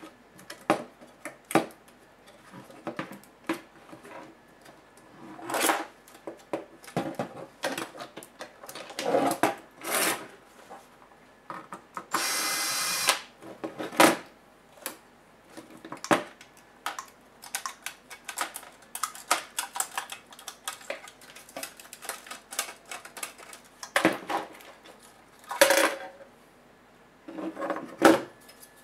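Compaq nx7400 laptop parts being handled and taken apart by hand: irregular clicks, taps and short rattles of its plastic chassis frame and metal parts. About twelve seconds in there is a steady scraping or whirring noise lasting about a second.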